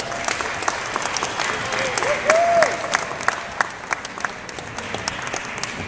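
Audience applauding in a large gymnasium hall, the clapping thinning out toward the end.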